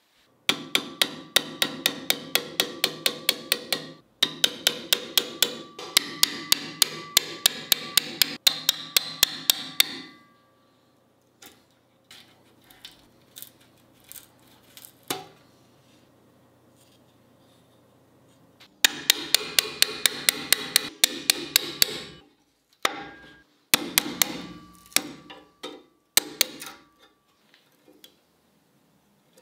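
Hammer striking metal in quick, even runs of blows, about three to four a second, each with a short metallic ring, driving out the rivets of a rusty antique cleaver's handle. A long run of blows gives way to a pause with a few light taps, then shorter runs near the end.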